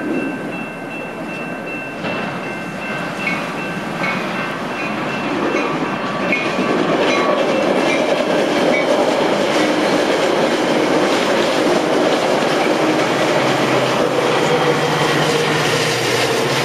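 Metra commuter train passing close by, its cars rumbling and clattering on the rails; the sound grows louder about six seconds in and then holds steady.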